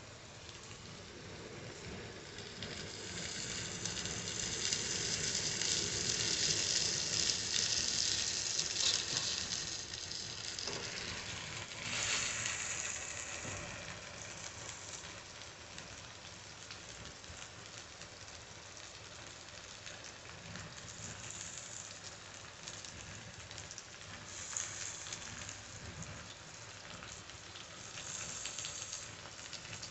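Washed flattened rice (poha) frying in a kadhai with onions and spices: a steady sizzle that swells loudest a few seconds in as the flakes go into the hot pan, then settles to a softer hiss with a few short flare-ups later on.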